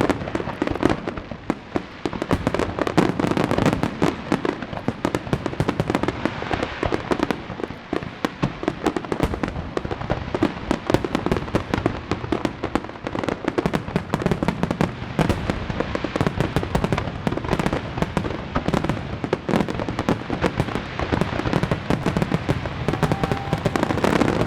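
Aerial fireworks display in a dense barrage: many shells bursting with rapid, overlapping bangs and crackles, with no break.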